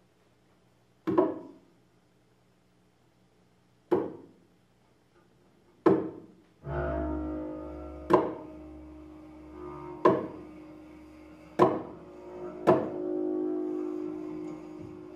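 Free-improvised double bass and struck sounds: seven sharp, irregularly spaced hits, each ringing off quickly. About halfway through, a low sustained bowed drone comes in and holds under the later hits.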